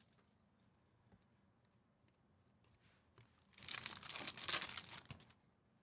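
A foil trading-card pack wrapper being torn and crinkled in a short burst, about three and a half seconds in, lasting under two seconds; before that only faint handling ticks.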